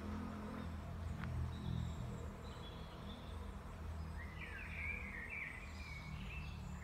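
Woodland birds calling, with short high notes early on and a warbling song from about four seconds in, over a steady low rumble.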